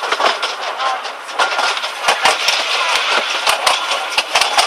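Miniature railway train carriages running along the track, rattling, with many irregular sharp clacks and knocks from the wheels and couplings over a steady rushing noise.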